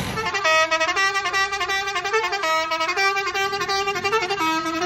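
Musical vehicle horn playing a quick tune: a run of clean electronic notes stepping up and down in pitch, a few notes a second.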